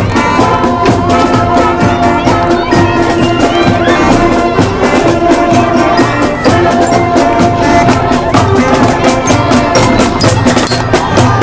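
Instrumental background music with a steady, quick beat of clacking percussion over sustained pitched instruments and a pulsing bass line.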